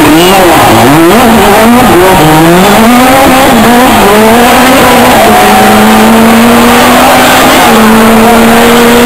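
Rally car engine revving hard through a corner, its pitch rising and falling rapidly with gear changes and throttle blips. About five seconds in it settles into a long, steady, slowly rising drone as the car pulls away. Very loud.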